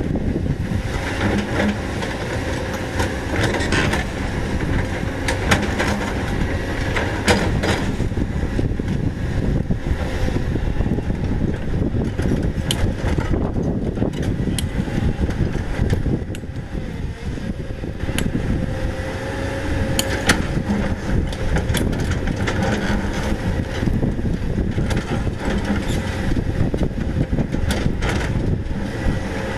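CAT 320D excavator's diesel engine running steadily under load as the hydraulic arm works, with frequent sharp knocks and scrapes as the steel bucket teeth dig into breccia rock. The din eases briefly about halfway through.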